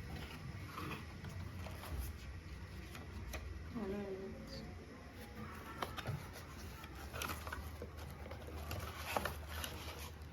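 Faint rustling and scattered clicks of a keyboard's box and packaging being handled and opened, over a low steady hum, with a brief murmured voice about four seconds in.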